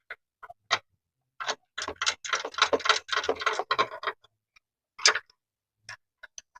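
Socket ratchet wrench clicking as a nut is tightened on a turnbuckle braced against the engine: a quick run of clicks for about two seconds in the middle, with a few single clicks around it.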